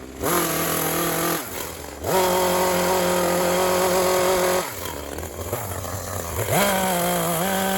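Two-stroke petrol chainsaw opened up to full throttle three times, dropping back to idle in between, as rough blocking cuts are made in the wood.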